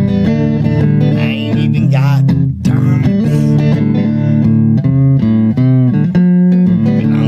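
Music with plucked guitar and bass guitar, a steady run of changing notes.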